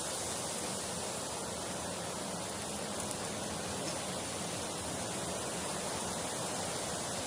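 Steady, even rushing noise with no separate events, like a continuous ambient sound bed.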